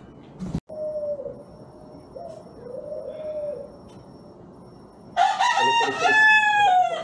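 Rooster crowing: one or two fainter crows in the first half, then a loud crow near the end that holds and falls in pitch as it finishes. A sharp click comes about half a second in.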